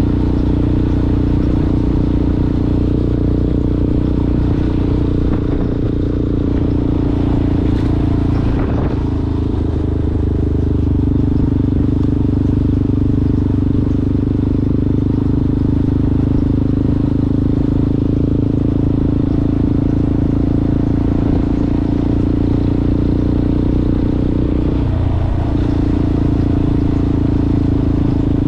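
Yamaha Ténéré motorcycle with a Coyote aftermarket exhaust running steadily under way off road. There is a short rattle about eight seconds in, and the engine note dips briefly near the end.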